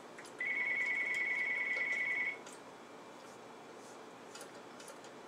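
A single electronic beep: one steady high-pitched tone held for about two seconds, then cut off.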